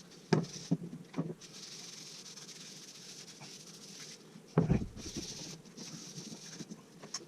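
Handling of a wooden piece: a few light knocks, the strongest about four and a half seconds in, with a soft rubbing hiss in between.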